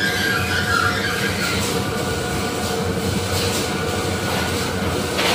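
Heavy factory machinery running with a steady hum, with a high metal-on-metal squeal in about the first second and a few faint knocks.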